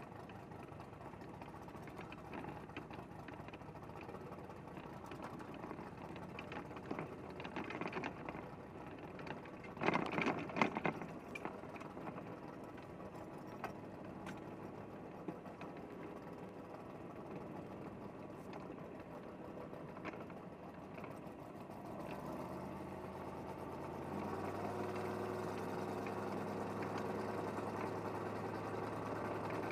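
Gasser drag car's engine running at low revs as the car drives slowly, heard from inside the car, with a dense rapid ticking clatter. About ten seconds in there is a brief louder rough burst, and from a little past twenty seconds the engine note turns steadier and louder.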